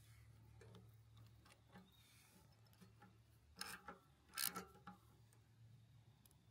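Hand tools and small engine parts being handled: faint scattered clicks, then two short metallic clatters a little after halfway, over a faint low hum. The engine is not running.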